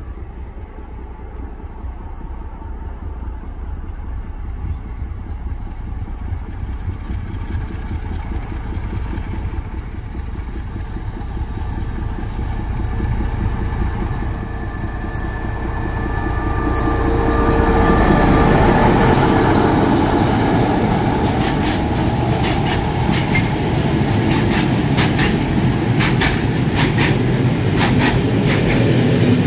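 LDH diesel-hydraulic shunting locomotive running under load with a train of LPG tank wagons, its engine rumble growing louder as it approaches and passes. In the second half the tank wagons roll by with steady clickety-clack of wheels over the rail joints.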